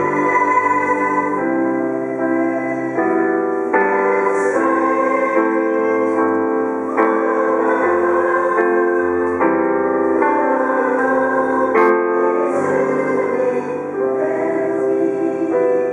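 Live performance of a slow piano ballad with held, choir-like chords that change about once a second. There is one sharp click about twelve seconds in.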